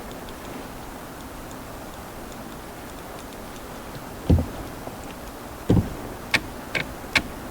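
Two dull knocks, then a run of sharp clicks, about two to three a second, over a faint steady hiss with faint regular ticking.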